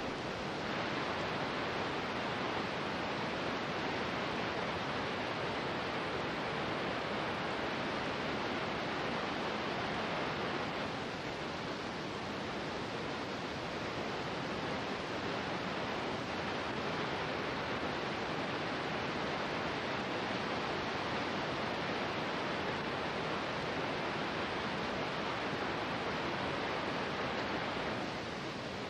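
Steady, even hiss with no distinct events, the noise floor of an old surveillance recording; it dips slightly about eleven seconds in.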